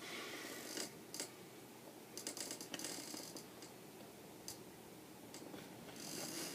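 Paper picture-book pages being handled and turned: a few short, faint rustles with small clicks.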